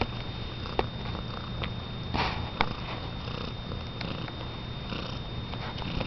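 Domestic cat purring steadily at close range, with a few faint clicks and a brief breathy swell about two seconds in.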